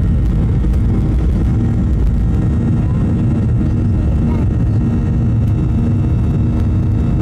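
Airliner's engines at takeoff power heard inside the passenger cabin during the takeoff roll: a loud, steady low rumble.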